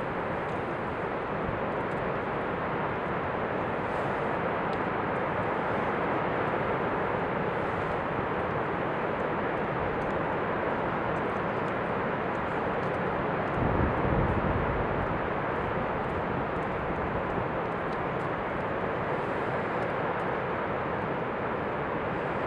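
Niagara Falls in winter: the steady, unbroken rushing noise of the waterfall. A brief low rumble comes about two-thirds of the way in.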